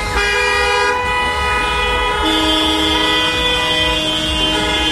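Several car horns held down together in long steady blasts, overlapping into a chord whose pitches change about two seconds in, over a low rumble.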